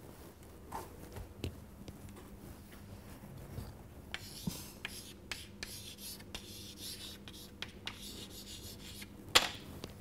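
Chalk writing on a chalkboard: a run of short scratching strokes as a word is written, then one sharp knock near the end.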